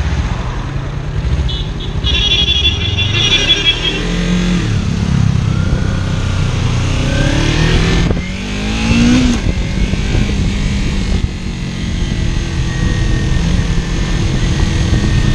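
Kawasaki Ninja 300's parallel-twin engine being ridden, its pitch rising and falling over and over as the rider works the throttle and gears, under steady wind rush on the camera.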